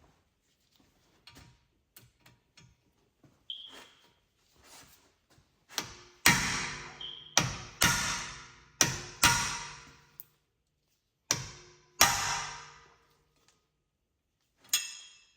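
Hammer blows on steel parts: about nine sharp strikes, each ringing and fading over about a second, mostly in pairs in the middle of the stretch, after a few seconds of light clinks and taps.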